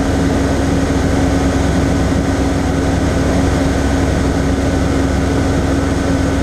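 Asso XI light aircraft's piston engine and propeller running steadily at cruise power in level flight, heard inside the cockpit as a loud, even drone with a constant hum.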